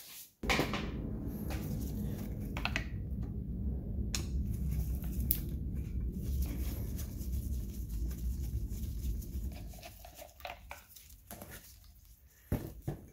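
A steady low rumble starts suddenly about half a second in and fades out after about ten seconds. Over it come scattered light clicks and knocks as a removed ignition distributor is handled and turned over on a cardboard-covered workbench.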